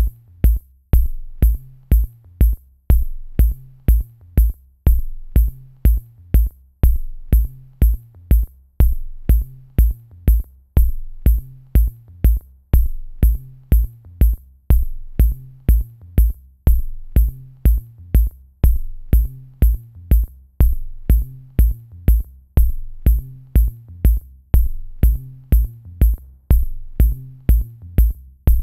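Background electronic music with a steady drum-machine beat, about two beats a second, over a low bass line.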